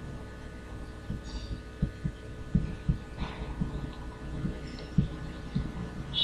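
Steady electrical hum, with a scatter of short, soft low thumps at irregular intervals.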